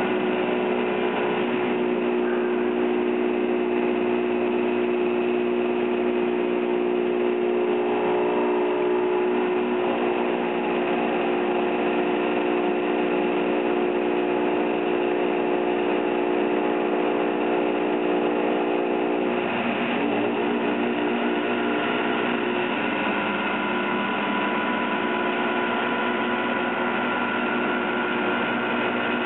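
Five-axis CNC machining centre milling an aluminium impeller under flood coolant: a steady hum made of several held pitches over a hiss, which shifts to a different set of pitches about twenty seconds in.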